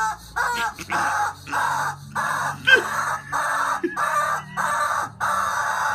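Yellow rubber chicken squeezed over and over, giving about ten short squawks in quick succession, roughly two a second.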